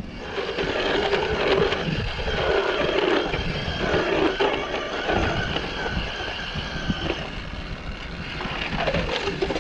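Old electric ice auger, powered from truck batteries, drilling through lake ice: a steady motor whine with rough grinding as the bit cuts, easing off near the end. It has less power than the owner would like, but it cuts through.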